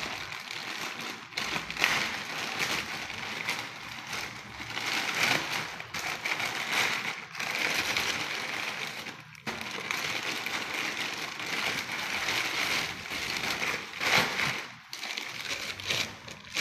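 Plastic courier mailer bag crinkling and crackling as hands tear it open and rummage through the wrapping inside, an irregular, continuous rustle with many sharp crackles.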